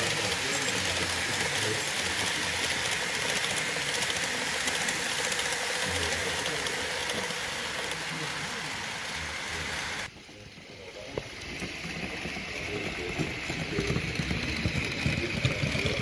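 Model electric freight train rolling along the track: a steady rushing hiss, with voices murmuring in the background. The sound drops suddenly about ten seconds in, then builds back up with more low rumble and small crackles.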